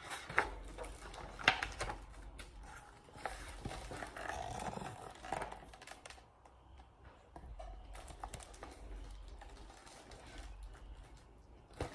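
Pages of a picture book being turned and handled: a few light taps in the first two seconds, then soft paper rustling, with faint handling noise after.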